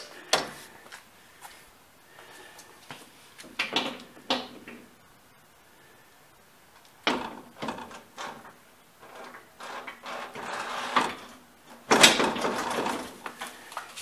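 Scattered metal clunks, knocks and scrapes as a Hummer H1 gear hub is worked loose on a tilting fixture and slid out from under its ball joint. The densest and loudest run of scraping and knocking comes near the end.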